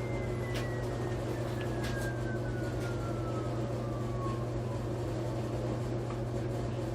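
Electric e-bike motor whine falling slowly in pitch as it spins down, fading out about four seconds in, over a steady low hum, with a few faint clicks.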